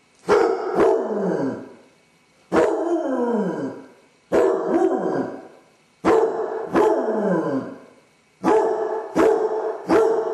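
Basset hound baying again and again: each call starts sharp, like a bark, then trails off in a howl that falls in pitch, and the calls come quicker and shorter near the end. It is the dog's distress at being left home alone, which the owner puts down to separation anxiety.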